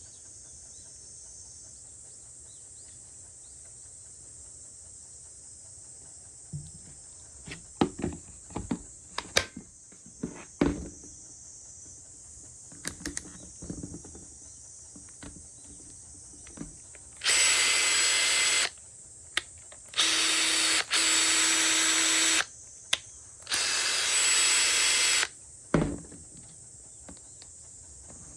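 Makita TP141D cordless 14.4 V 4-mode impact driver handled with a few clicks and knocks, then run with no load in four short trigger pulls of about a second and a half each. Each pull gives a steady motor whine, and a single knock follows. The tool is being test-run after being taken apart and cleaned.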